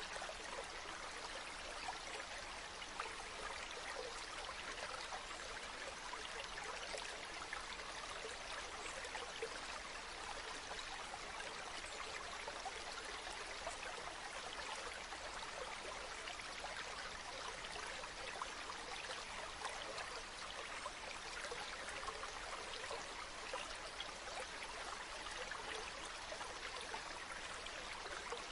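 A shallow river or stream flowing over stones: a steady babbling and trickling of water.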